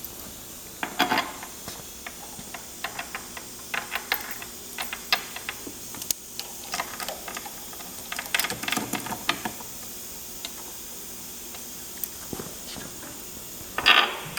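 Scattered metal clicks and knocks from handling the boiler's hinged, insulated cast iron door. They come in clusters about a second in, around four seconds, around eight to nine seconds and again near the end, over a steady faint hiss.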